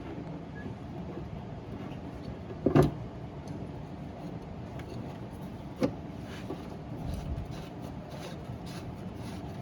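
Hand work fitting the locking cap of a fuel pump assembly onto a plastic fuel tank: two sharp knocks, a loud one about three seconds in and a smaller one near six seconds, with a few light clicks over a steady low background.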